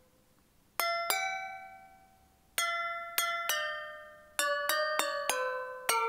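A short melody on a sampled bell instrument built from recordings of a finger flicking a champagne glass. Struck, glassy notes ring and fade, starting about a second in: two notes, then three, then a quicker run of notes near the end.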